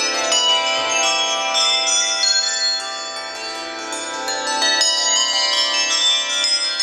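A set of 24 tuned handbells rung in change ringing: a continuous stream of bell strokes struck one after another in a shifting order, each note ringing on under the next.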